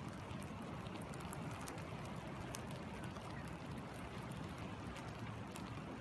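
Rain falling on a shallow stream and its pool, many small scattered drop ticks over the steady low rush of the flowing water.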